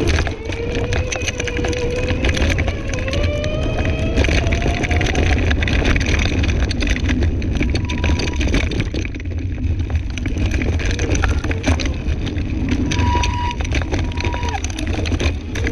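Scooter ridden fast over a rough woodland dirt path: a steady low rumble with constant rattling and clicks from the bumpy ground. A whine rises in pitch over the first five seconds.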